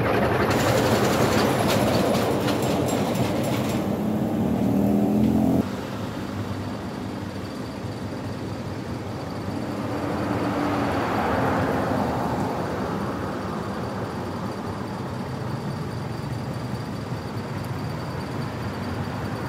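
Motor vehicle running nearby, cutting off abruptly about five and a half seconds in; another vehicle passes, loudest around ten to twelve seconds in.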